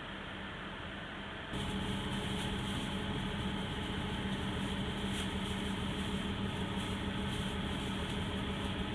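Diesel railcar heard from inside the passenger cabin: a steady low engine hum, stepping up to a louder, steady engine drone about a second and a half in as the railcar pulls slowly away.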